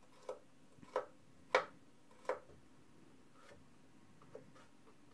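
Kitchen knife slicing garlic cloves on a plastic cutting board: four sharp taps of the blade against the board in the first two and a half seconds, then a few fainter ticks.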